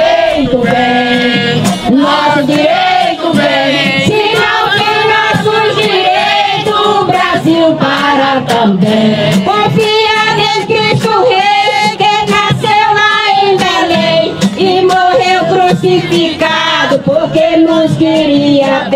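Music with several voices singing together.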